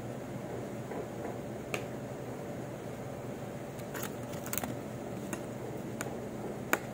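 A few light, sharp clicks and taps of a glass test tube and small lab items handled by gloved hands, over a steady hum of laboratory equipment.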